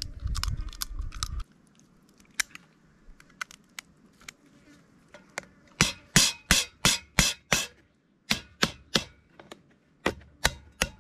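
A large knife cutting through the shell of a cooked crayfish tail on a wire grill: a run of sharp cracks and clicks, about four a second, loudest in the middle and again near the end. A low rumble fills the first second and a half.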